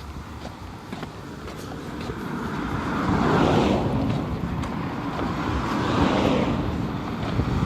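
Road traffic: cars passing on the street, one swelling past about three and a half seconds in and another about six seconds in.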